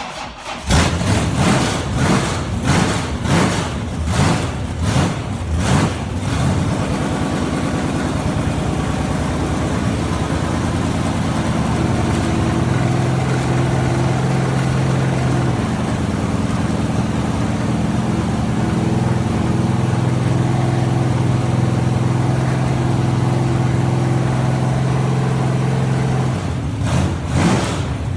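408 cubic-inch Ford Cleveland V8 just fired up on its first start after being reinstalled. It is blipped with the throttle again and again for about six seconds, then settles into a steady idle, and is revved a few more times near the end.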